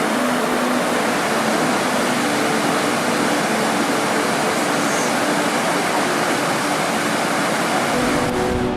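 Steady roar of Snoqualmie Falls' water. Near the end the sound changes and music comes in.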